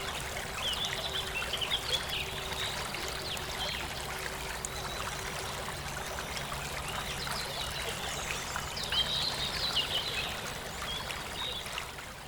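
Steady running water of a stream, with songbirds chirping over it in two bursts of song; the whole sound fades out near the end.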